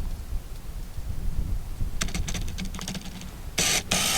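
A low rumble of handling or wind noise, with a run of light, irregular clicks starting about halfway through, then a short breathy whisper near the end.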